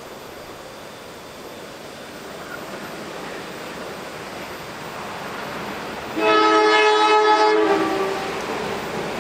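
Diesel locomotive horn of an approaching passenger train, sounding one long blast of about a second and a half, about six seconds in. The rumble of the train grows louder under it.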